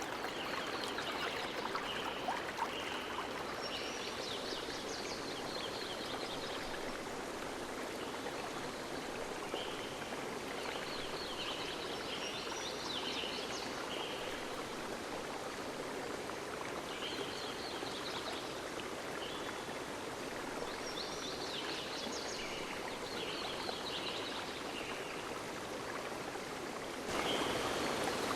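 River water flowing steadily, with high chirping calls, likely birds, coming in short clusters every few seconds. The water gets abruptly louder about a second before the end.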